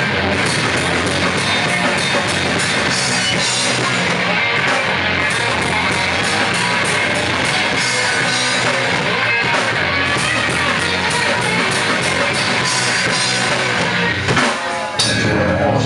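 Punk rock band playing live: electric guitars and a drum kit with steady cymbal hits. The music drops out briefly near the end, then the band comes back in.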